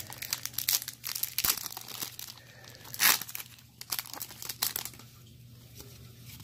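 Foil wrapper of a Pokémon trading-card booster pack being torn open and crinkled as the cards are pulled out. The crackling is loudest about three seconds in and dies down to light handling near the end.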